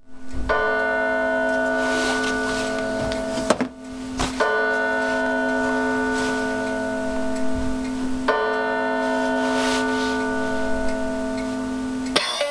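Music from a portable MP3 player played through a homemade PCL86 valve amplifier and speakers: a held, ringing chord that starts over about every four seconds, with a short break near the middle. Just before the end it switches to guitar music.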